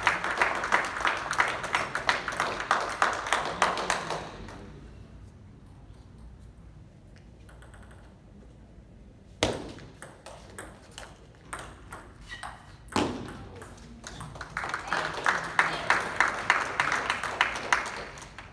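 Table tennis ball clicking off rackets and table in a rally, a few hits a second, with a loud hit about halfway through and another near thirteen seconds in. Before and after the rally there are spells of spectators clapping with some voices: one in the first four seconds and another in the last few.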